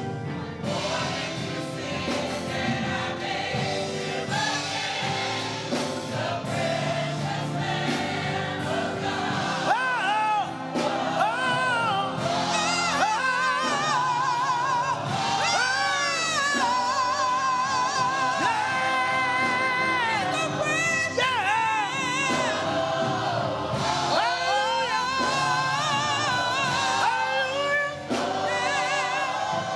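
Gospel singing with choir and instrumental accompaniment. A voice sings long, wavering runs with heavy vibrato over sustained chords.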